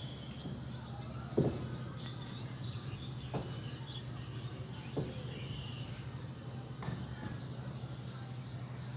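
Background ambience: a steady low hum with small birds chirping faintly and repeatedly. A few soft knocks stand out, the loudest about a second and a half in.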